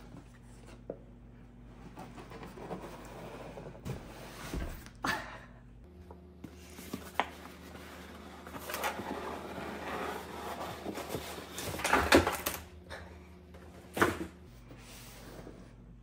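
Cardboard boxes being handled: a boxed Nespresso coffee machine dragged and lifted out of its cardboard shipping carton, with scraping and rustling of cardboard and small knocks, busiest about twelve seconds in. A sharp knock about two seconds before the end as the box is set down.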